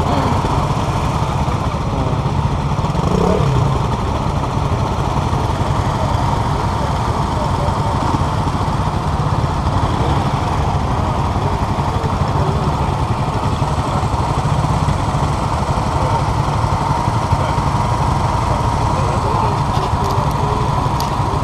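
Several small motorcycles idling together, a steady low engine rumble that neither rises nor falls.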